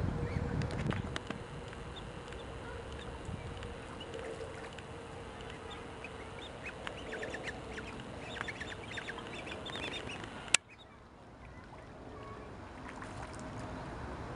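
Eurasian coots calling with a scatter of short, sharp calls, busiest just before a single sharp click about ten seconds in, after which the background is quieter.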